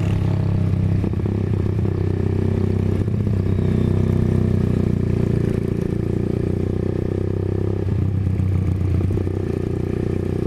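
1997 Honda GL Pro's single-cylinder four-stroke motorcycle engine running under way, its note shifting a little up and down with the throttle, with some rattle over it.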